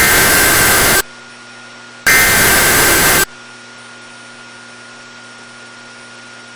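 Emergency Alert System SAME header data bursts: two harsh, buzzing one-second bursts of digital tones, about a second apart, encoding a severe thunderstorm warning. After them come several seconds of low hiss and hum.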